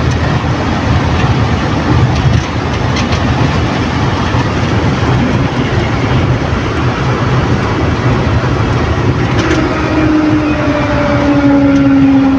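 Steady engine and road noise of a van driving along, heard inside the cabin. Over the last few seconds a pitched hum slowly falls in pitch.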